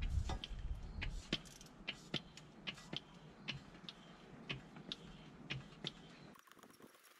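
Hand-operated oil pump being worked to fill a gearbox with new gear oil, a faint click with each stroke, about two a second.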